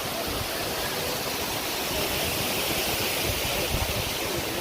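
Steady rushing of flowing water, like a stream or waterfall, with irregular low rumbling underneath.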